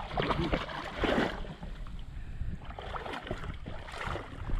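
Water sloshing and splashing in shallow reef water, with wind buffeting the microphone; the loudest surge comes about a second in.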